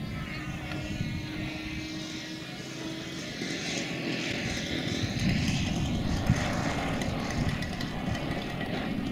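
Engine and propeller of a radio-controlled scale Cessna 150 model running as it comes in to land and touches down. A steady hum gives way about three seconds in to a rougher, slightly louder sound.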